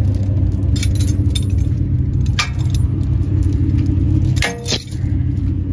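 A 1968 Dodge D300 tow truck's engine idling steadily, with a few sharp metallic clinks of tow chain and J-hooks being handled, the last and loudest near the end.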